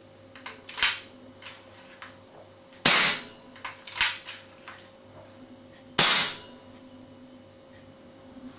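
Two shots from a .177 Webley FX2000 pre-charged pneumatic air rifle fitted with a foam-baffled aluminium silencer, about three seconds apart. Each is a sharp crack with a short fading tail. Lighter clicks come before and between them.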